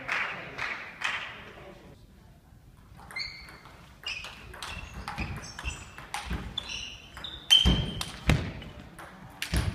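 Table tennis rally: the celluloid/plastic ball clicking and pinging off bats and table in quick alternation, starting about three seconds in. Two louder hits come near the end, each with a low thud.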